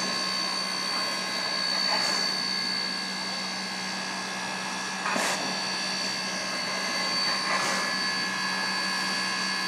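Chinese SY-class Mikado steam locomotive letting off steam: a steady hiss with a high, even whine, and a louder surge of hissing about every two to three seconds.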